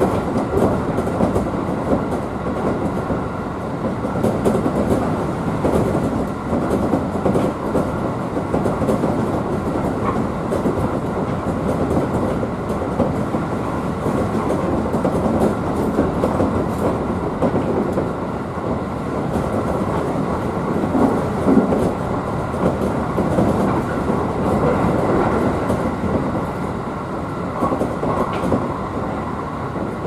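Running noise inside the passenger car of a JR 211 series 3000-subseries electric multiple unit under way: a steady rumble of the wheels on the rails.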